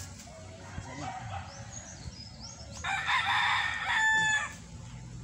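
A rooster crows once, about three seconds in, for about a second and a half, ending on a clear held note.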